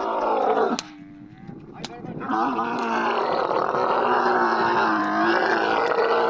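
Dromedary camel groaning loudly with its mouth open as it is hauled to its feet by ropes. One call breaks off just under a second in, and a second, longer call starts about two seconds in.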